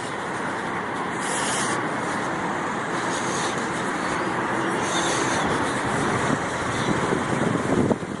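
Street traffic noise: a steady rush of road vehicles that swells slightly after the first second and eases off near the end.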